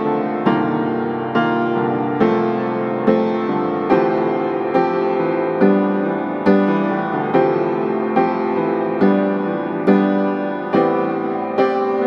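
Slow background piano music, a note or chord struck a little more often than once a second and left to ring.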